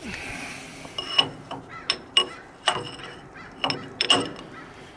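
Sharp metal-on-metal clanks, about eight in an irregular series over three seconds, each ringing briefly, while a stuck backhoe boom cylinder is worked loose.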